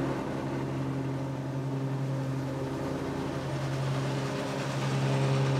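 Zero-turn riding mower's engine running steadily under load while mowing, a constant drone that grows slightly louder near the end.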